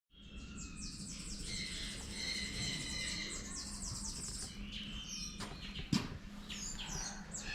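Many small birds chirping and twittering together in a dense, overlapping chorus, over a low steady hum. A couple of sharp clicks come near the middle, the louder one about six seconds in.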